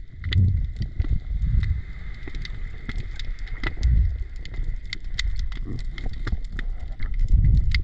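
Underwater ambience picked up by a diving camera: many sharp, irregular clicks and crackles, the reef crackle of the seabed, over a low surging rumble of moving water.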